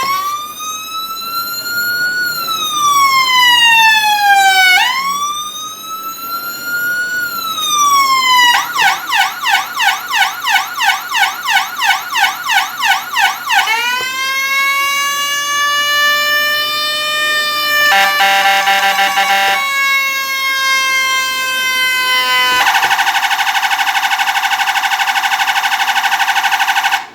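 Whelen Cencom Gold electronic siren cycling through its tones: a slow wail that rises and falls twice, then a fast yelp at about four cycles a second. About fourteen seconds in, a slow rise to a held mechanical-siren-style tone follows, and about twenty-two seconds in a harsh steady tone takes over and cuts off at the end.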